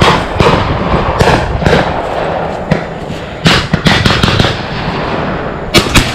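Shotguns firing at passing doves: a quick run of shots from hunters around the field, some sharper and nearer than others, with the loudest two in quick succession near the end.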